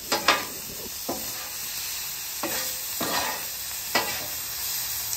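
Sausage, peppers, onions and mushrooms sizzling on a steel flat-top griddle while a metal spatula scrapes across the surface several times, pushing the food into a pile.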